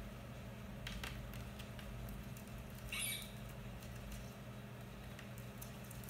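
Indian ringneck parakeet climbing on a metal blind rod: faint clicks of beak and claws gripping the rod about a second in, then a single short squeak about three seconds in.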